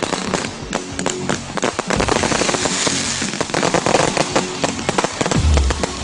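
Fireworks going off in a rapid, irregular volley of sharp cracks and pops, with music playing underneath.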